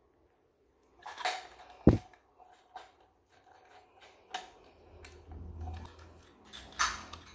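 Handling clicks and knocks from an Abu Garcia Cardinal 759 spinning reel as it is turned over in the hand, scattered and irregular, with the sharpest click about two seconds in.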